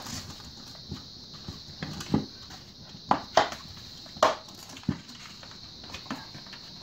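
Tight-fitting plastic bucket lid being pried off by hand, its rim popping and snapping free of the bucket in a series of sharp plastic cracks between about two and five seconds in.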